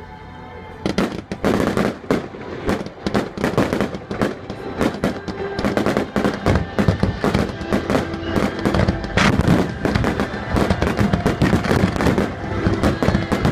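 Fireworks display: a dense, rapid barrage of bangs and crackling that starts about a second in and keeps on without a break, with music playing underneath.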